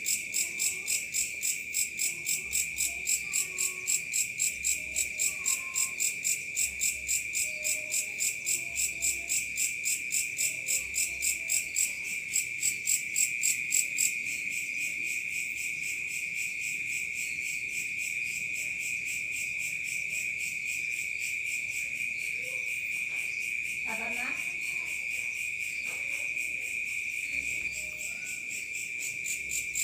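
Night chorus of crickets: a steady high trill with a pulsing chirp of about three a second over it. The pulsing fades about halfway through and comes back near the end.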